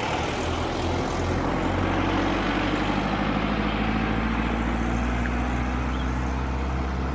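Airbus A320 airliner's twin jet engines running steadily as it taxis onto the runway: an even engine rush with low droning tones underneath.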